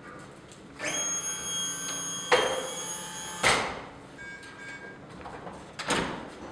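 Ferno iNX powered ambulance stretcher extending its legs under load: a steady high electric whine for about two and a half seconds, with a knock partway through, ending in a clunk as the legs lock down. A second knock comes near the end.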